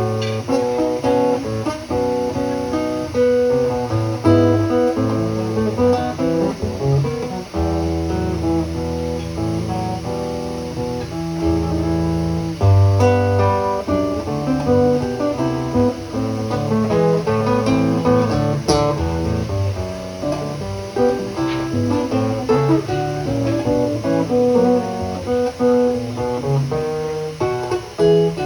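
Instrumental music on a plucked string instrument: a steady flow of short notes over a moving bass line.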